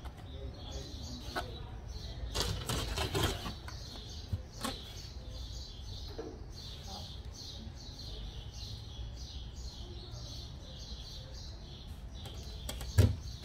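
Steel fence posts clattering against each other and the metal rack as they are handled and pulled out, with a sharp knock near the end. Throughout, a bird chirps over and over in quick succession.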